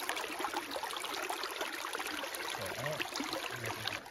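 Creek water flowing and trickling steadily.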